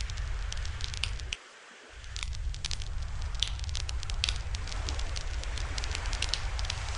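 Wood campfire burning in a fire stand, crackling with many sharp, irregular pops over a steady low rumble. The rumble cuts out briefly about one and a half seconds in.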